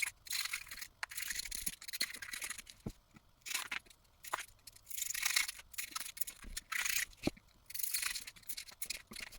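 Repeated short rasping strokes with small clicks in between: a blade or scissors cutting through sealing foam.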